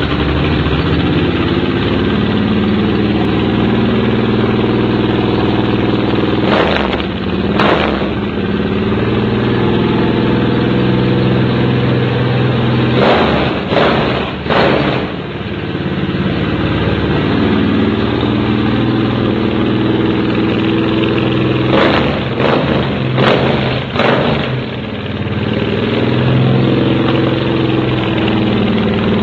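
Suzuki Boulevard 1500 V-twin idling through an aftermarket Roncar V-Rod Scorpion sport exhaust, blipped with short throttle revs: twice about a quarter of the way in, three times around the middle, and four times about three quarters through.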